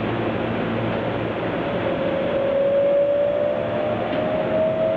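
Running sound of a Keihan 9000-series electric train recorded on board: a steady rumble of wheels on rail, with a motor whine that comes in about two seconds in and rises slowly in pitch as the train gathers speed.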